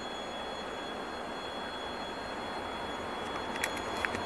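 Distant rumble of an approaching 2TE116 twin-section diesel locomotive hauling a freight train, slowly growing louder, with a few sharp clicks near the end.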